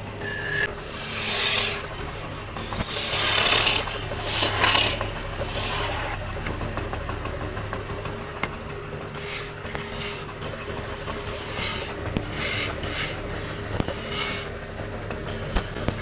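Wood lathe motor running with a steady hum while a hand-held chisel scrapes and cuts into a spinning mahogany block in several separate bursts, loudest about three to five seconds in.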